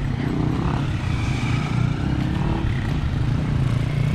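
A motor vehicle engine running steadily close by, a low continuous rumble with a rapid pulsing texture.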